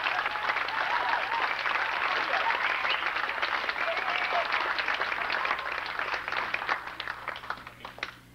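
A roomful of guests applauding, with a few voices calling out over the clapping. The applause thins out and dies away near the end.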